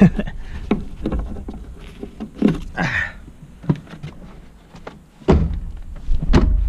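A series of clunks and knocks as the Land Cruiser Prado's rear seat parts are worked and pushed down into place, with a struggle over the mechanism. The loudest thuds come just after the start, about five seconds in and near the end.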